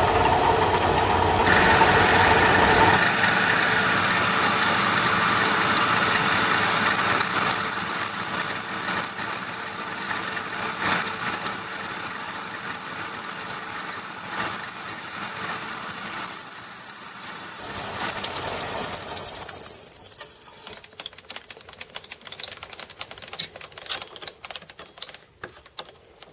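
Metalworking machine tool running with its cutter working metal, a steady loud mechanical racket with rattle in it. It eases down after about seven seconds, turns harsher and hissier for a few seconds near the end, then stops, leaving only scattered clicks and knocks.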